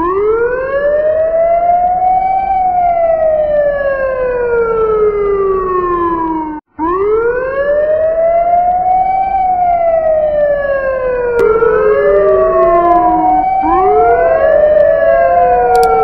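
Police car siren sounding a slow wail: the pitch rises for about two and a half seconds, then falls for about four. It cuts out briefly about seven seconds in and starts again. Toward the end a new rise begins before the previous fall has finished, so the cycles overlap and come quicker.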